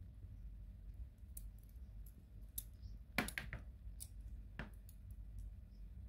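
Light metallic clicks and rattles from a cheap blunt practice balisong's metal handles and pivots as it is turned in the hand, a few scattered clicks with a quick cluster of them a little after three seconds.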